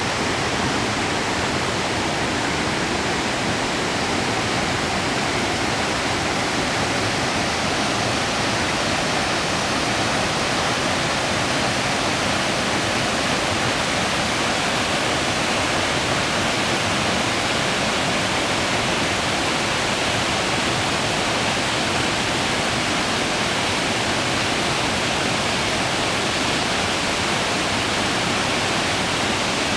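Small waterfall pouring steadily into its pool.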